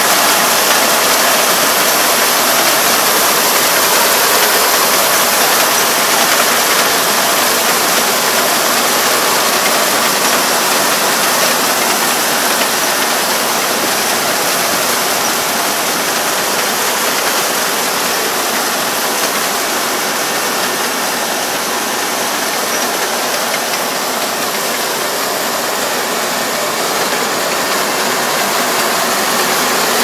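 Rice combine harvester running while cutting rice, a steady rushing noise of its engine and threshing machinery. It fades a little as the machine draws away and swells again near the end.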